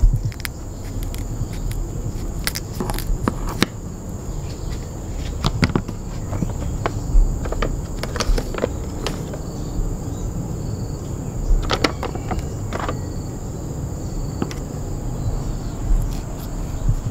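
Kitchen scissors snipping through salted sultan fish fillets in scattered clicks and short crunches, with a paper packet handled partway through. A steady high insect drone runs underneath.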